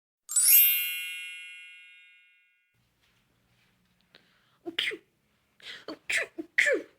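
A bright chime strikes once and rings out, fading over about two seconds. Later, near the end, a person makes several short vocal sounds.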